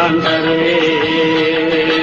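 Instrumental music in Indian film-song style, with held notes and a melody line that wavers about half a second in, without singing: the closing bars of a song.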